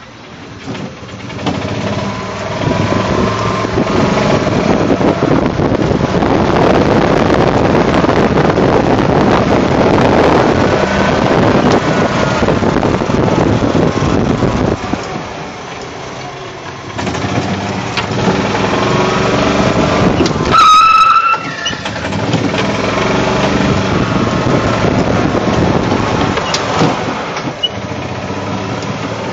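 E-Z-GO golf cart being driven, its running noise building over the first few seconds and holding steady, dipping briefly around the middle. About two-thirds of the way through there is a brief high-pitched squeal.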